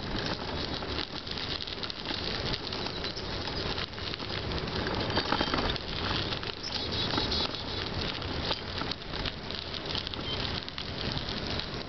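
Bicycle tyres crunching steadily over a gravel towpath while riding, with crackly rattling from the bike and camera mount. A few faint bird chirps come through about halfway in.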